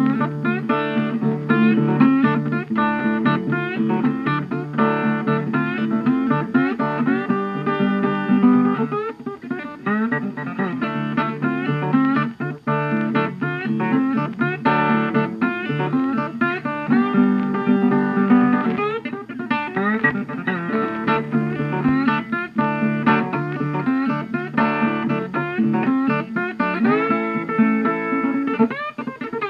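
Background music: guitar playing a continuous plucked tune with sliding notes, in a blues or country style.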